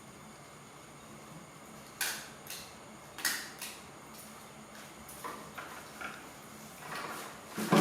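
Irregular light clicks and knocks from objects being handled, about eight of them, the loudest near the end.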